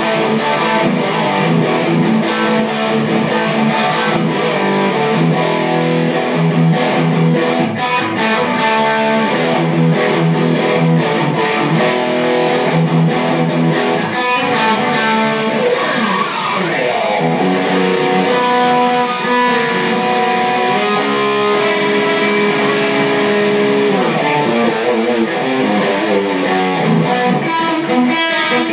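Electric guitar played through a Peavey amp head and Mesa speaker cabinet, loose improvised noodling: sustained notes and chords ringing over one another, with a few pitch slides around the middle.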